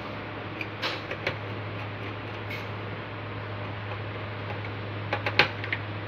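Light clicks and taps from hands working wires into the screw terminal block of a fire alarm control panel: a few scattered clicks around a second in, then a quick cluster near the end, the loudest of them there. A steady low hum runs underneath.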